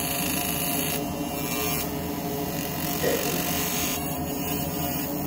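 Fiber laser engraver buzzing steadily as it makes rapid repeated passes over a metal handcuff, its tone shifting every second or two as it moves between shapes.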